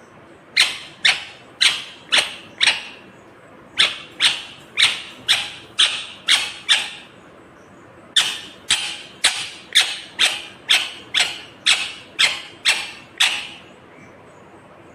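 Rose-ringed (Indian ringneck) parakeet giving loud, sharp repeated calls at about two a second, in three runs separated by short pauses.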